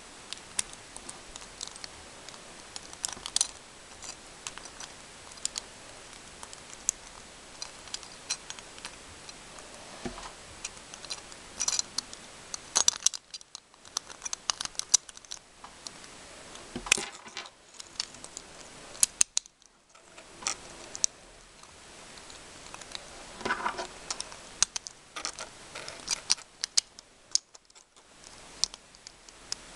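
Irregular small clicks, taps and rattles of hands handling a plastic spinning-top toy and its packaging, some in quick clusters, over a steady faint hiss.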